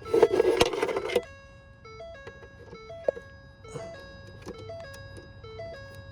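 Background music: a simple electronic melody of plain, evenly held notes stepping up and down. Over the first second a loud scraping, rustling burst of handling noise sits on top, and a few sharp clicks come later.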